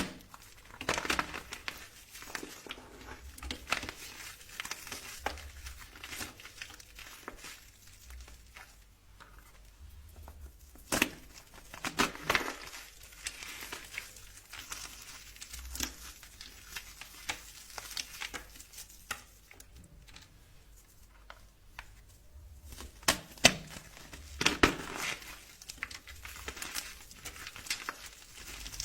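Dry soap being cut and crumbled, giving irregular crunching and crackling. Sharper cracks come about eleven and twelve seconds in and again around twenty-three to twenty-five seconds.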